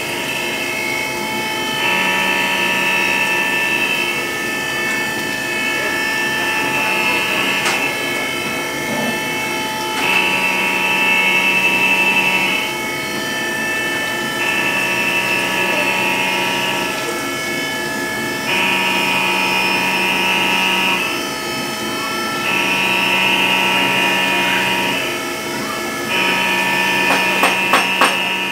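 CNC milling machine spindle running with an end mill cutting a metal part held on a fourth-axis rotary chuck: a steady machine whine with a stronger cutting tone that comes in for two to three seconds at a time, about every four seconds, as the cutter works in passes. A few sharp clicks come near the end.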